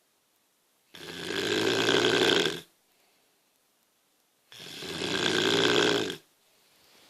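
A woman snoring in her sleep: two snores, each lasting nearly two seconds, about three and a half seconds apart, with quiet breathing pauses between them.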